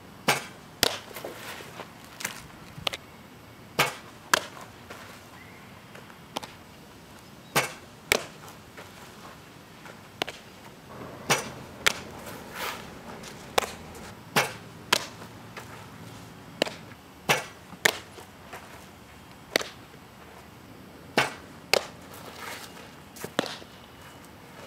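Softballs smacking into a catcher's leather mitt and gear during catching and blocking drills: sharp knocks, mostly in pairs about half a second apart, recurring every three to four seconds.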